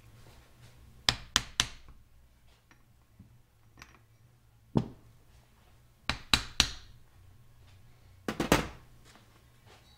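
Sharp metal knocks on a Toyota G285 differential carrier as it is worked loose from the third-member housing, the bearing caps already loosened. The knocks come in groups: three about a second in, a single one near the middle, three more shortly after and a tight cluster near the end, some ringing briefly.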